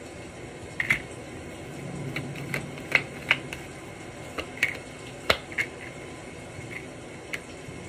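Tarot cards being handled, with a handful of light, irregular clicks and taps as the cards are moved and laid down.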